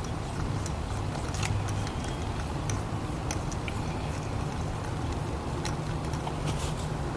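Scion tC's 2AZ-FE four-cylinder engine idling with a steady low hum, with light irregular ticks over it.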